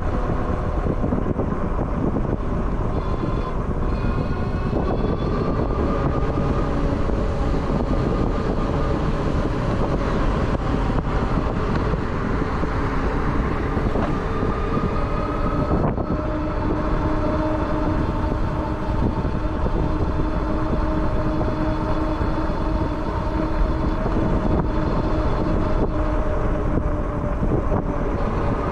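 Steady rush of wind and road noise while riding a RadRunner e-bike, with a whine from its rear geared hub motor that rises in pitch a couple of times as the bike speeds up, then holds steady through the second half.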